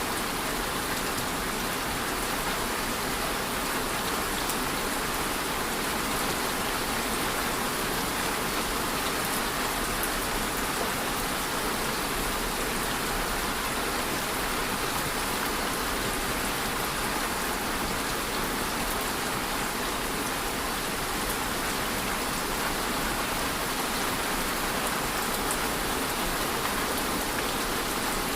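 Steady rain falling, an even hiss of many drops with no pauses or changes.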